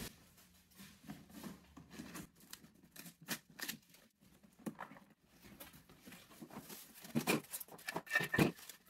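Unpacking by hand: scissors cutting into a cardboard box, then plastic packaging rustling and crinkling. It comes as a string of short, scattered clicks and rustles that grow louder near the end.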